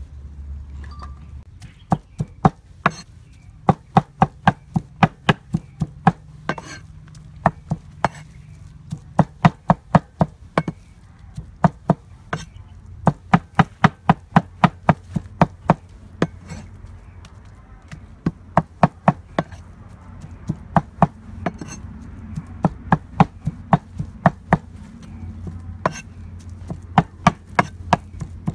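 Cleaver chopping raw pork into mince on a wooden chopping board: sharp knocks in quick runs of about three or four a second, with short pauses between the runs.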